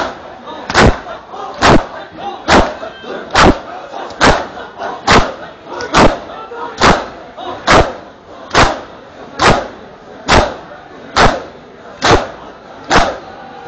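Matam chest-beating by a large crowd of mourners: many open hands striking bare chests in unison, a sharp loud slap a little more than once a second in a steady rhythm.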